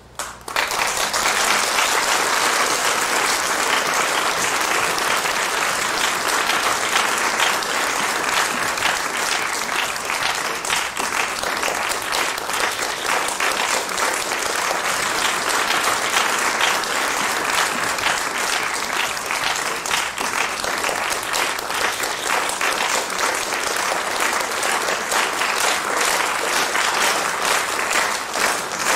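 Theatre audience applauding, breaking out all at once as the performance ends and keeping up a dense clapping. Near the end the clapping falls into an even, rhythmic beat.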